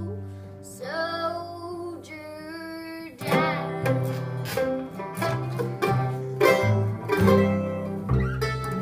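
Acoustic string band of mandolin, two acoustic guitars and upright bass playing a folk tune. A girl sings the end of a line for about the first three seconds, then the instruments carry on alone with quick picked notes over the walking bass.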